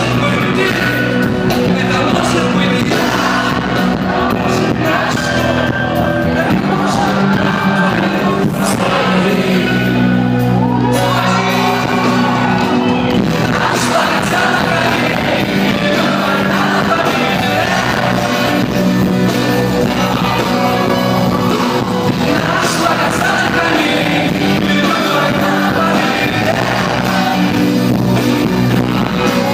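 A rock song with singing over a steady beat, with shouts and yells mixed in.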